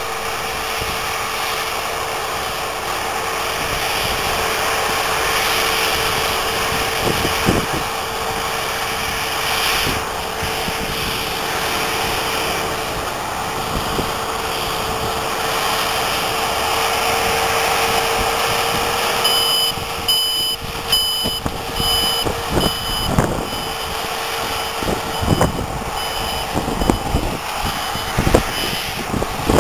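Combine harvester running steadily as it harvests dry sunflowers, its engine and threshing gear giving a constant hum. About two-thirds of the way in, a reversing alarm starts beeping about twice a second and grows fainter toward the end, with a few short knocks alongside.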